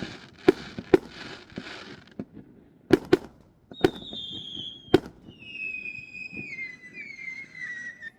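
Aerial fireworks bursting, with sharp bangs and a crackling haze in the first couple of seconds. In the second half several overlapping whistles fall in pitch.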